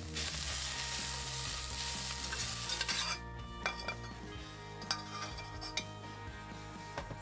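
Bacon and diced peppers sizzling loudly in a cast-iron skillet as they are stirred with a metal spoon. The sizzle stops abruptly about three seconds in. After that come a few sharp clinks of metal utensils against the pans.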